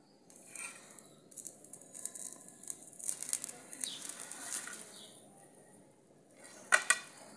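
Fried onion pakoras dropped by hand into a kadhai of simmering spiced gravy: soft, scattered plops and splashes over the first few seconds. A sharp clink near the end.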